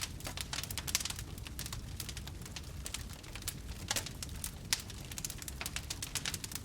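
Fire burning, crackling with quick irregular pops and a steady low rumble underneath; a few louder pops come around the middle.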